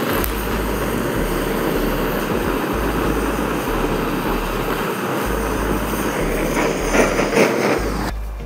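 Handheld food-grade torch blowing a steady, hissing flame as it sears mayo-topped fish nigiri, shutting off near the end.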